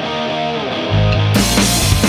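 Background rock music: guitar notes, then bass and a drum kit come in about a second in.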